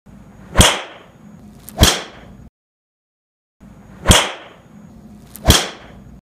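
Four sharp metallic cracks of TaylorMade SLDR drivers striking a golf ball, recorded about two inches from impact, in two pairs. In each pair the SLDR 460 strikes first and the SLDR 430 second; the reviewer hears the 430 as slightly higher-pitched at impact.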